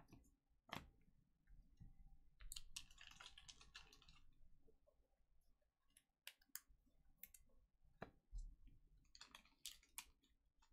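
Faint handling noises: scattered sharp clicks, with a short rustle about two and a half seconds in and another near the end.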